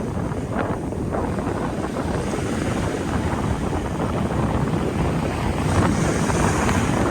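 Strong wind buffeting the microphone with a heavy low rumble, over sea waves washing in.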